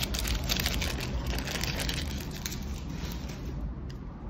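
Foil wrapper of a Magic: The Gathering draft booster pack crinkling and tearing as it is pulled open by hand, fading out in the second half. A steady low rumble of street traffic runs underneath.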